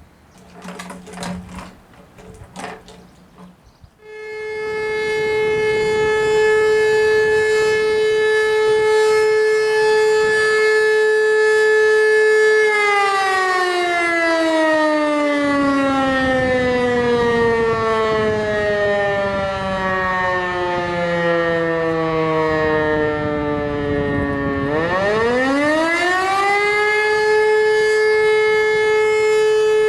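E57 electromechanical motor siren sounding the 'Feueralarm' fire-brigade signal. About four seconds in it winds up quickly to a loud, steady, many-toned note and holds it for roughly eight seconds. It is then cut off and runs down slowly in falling pitch for about twelve seconds, before winding up again to full pitch and holding.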